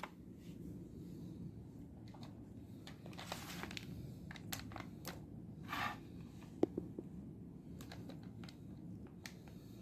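Faint handling sounds: scattered light clicks and two short rustles, over a low steady hum.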